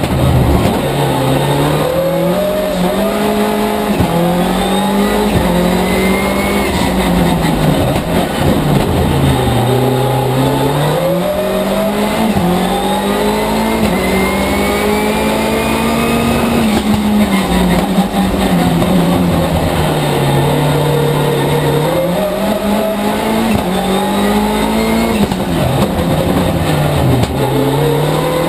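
Mitsubishi Colt rally car's engine revving hard on a tarmac stage. Its pitch climbs under acceleration and falls back as the car slows for corners, several times over.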